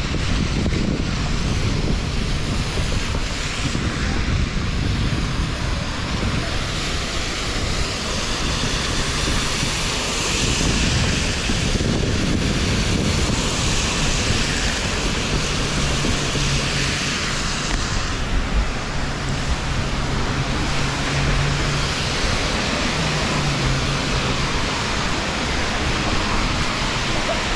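Rainy street ambience: a steady hiss of rain and traffic on wet pavement, with wind buffeting the microphone. A low steady hum joins in for several seconds around the middle.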